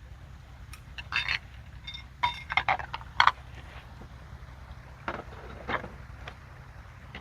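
Light clinks and knocks of small hard items, metal or glass, being handled, in irregular clusters of a few strikes with brief ringing, over a steady low hum.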